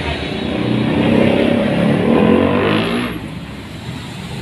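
Hino heavy truck's diesel engine revving as it pulls past, its note rising and then falling. After about three seconds it gives way abruptly to quieter road traffic noise.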